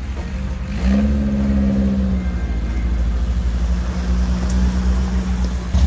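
Dune buggy engine running as the buggy drives slowly past. The sound swells sharply about a second in, then settles into a steady, deep, pulsing rumble with a hum over it.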